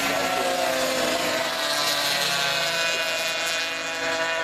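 Several classic Grand Prix racing motorcycles running at high revs through a bend, their engine notes overlapping and rising and falling in pitch.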